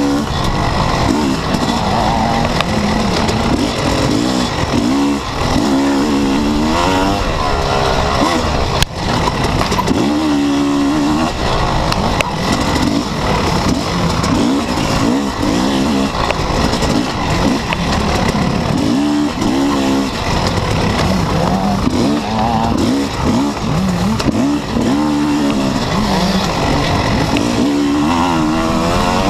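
Yamaha YZ250 two-stroke dirt bike engine, heard from the handlebars, revving up and dropping back again and again as it is ridden hard along a trail, over a constant hiss. A single sharp knock sounds about a third of the way through.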